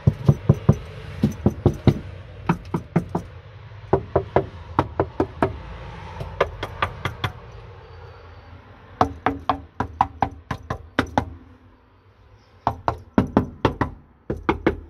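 Knuckles rapping on the car's boot-floor sheet metal in quick runs of several knocks, testing how the panel sounds now that it is partly covered with bitumen sound-deadening pads, which should make it sound duller.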